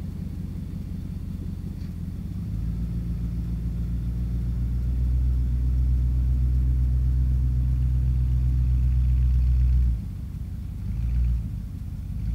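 Pickup tow truck's engine pulling a load through snow. It builds up about two and a half seconds in, holds a steady low drone, then drops off suddenly near ten seconds, followed by two brief revs.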